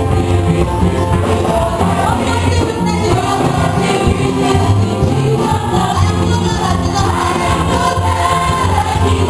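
Choir singing to band accompaniment, continuous music with a strong, steady bass.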